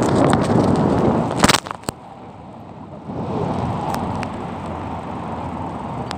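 Wind rushing over the microphone while riding fast on an electric bike, with one sharp knock about a second and a half in and a few clicks after it; the rush drops for about a second and then comes back.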